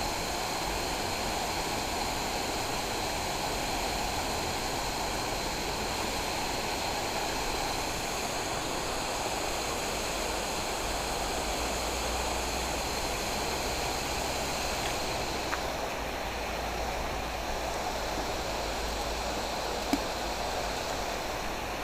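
Steady rushing of flowing canal water, with a faint knock about twenty seconds in.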